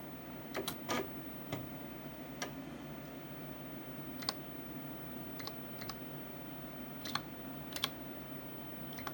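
Irregular keystrokes on a computer keyboard, about a dozen clicks spread unevenly, some in quick pairs, over a steady low hum.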